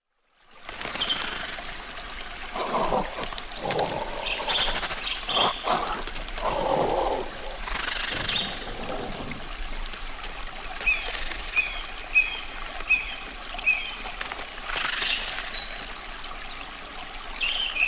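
Forest ambience: assorted birds calling over a steady trickle of running water, including a run of about five short, evenly spaced chirps midway through.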